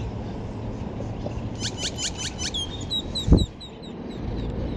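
A bird calling: a quick run of five sharp notes, then a string of short chirps, over steady background noise. A single loud, deep thump a little over three seconds in.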